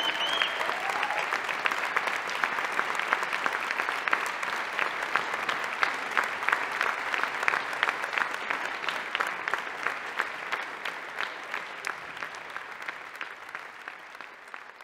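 A theatre full of people applauding, with many hands clapping at once in a steady clatter that gradually fades out near the end. A brief high whistle sounds at the very start.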